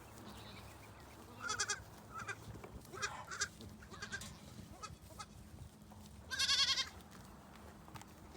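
Goats bleating: several short calls, then one louder, wavering bleat about six and a half seconds in.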